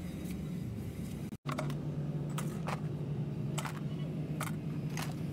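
Scattered sharp metal clicks, about six in a few seconds, as a heavy truck's tapered roller wheel bearing is handled and wiped in a rag over a metal pan. A steady low hum runs underneath, with a brief cut-out about a second and a half in.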